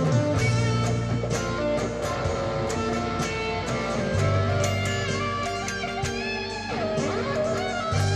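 Cort single-cutaway electric guitar playing a slow melodic lead line, with bent notes sliding up and down in pitch. Sustained low notes sit beneath it and change about four seconds in and again near the end.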